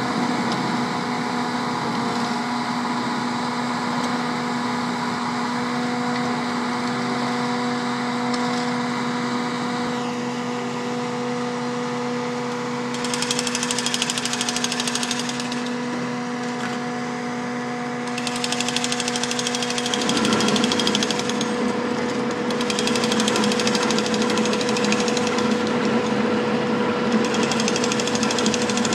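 Skid-steer loader's engine running steadily while its asphalt-milling attachment grinds into the pavement with a harsh, rapid rattle, the grinding coming in spells of a few seconds from about halfway through.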